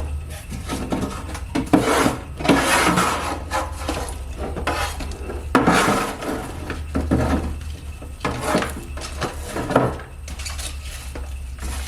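Irregular scraping, rubbing and clattering as debris is cleared away by hand, over a steady low hum.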